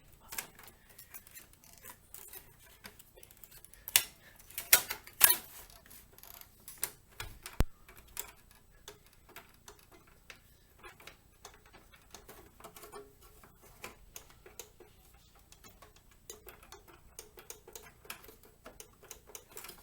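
Irregular small clicks and taps from handling a desktop computer case and its parts, with a few louder sharp knocks about four to five seconds in and another near eight seconds.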